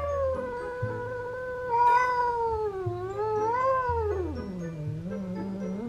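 An adult Bengal cat giving one long, unbroken yowl that wavers in pitch and sinks into a low growl near the end: a territorial, hostile call toward a newly arrived kitten.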